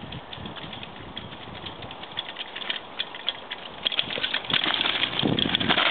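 Mountain bike coming down a rocky trail, its tyres and frame clattering and rattling over the stones, growing louder as it comes close about four seconds in.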